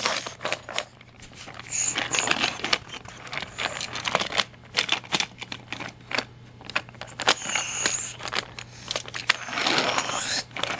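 Toy trains clicking and clattering against a plastic toy track set and its turntable as they are pushed and moved by hand: a run of many small sharp knocks and rattles.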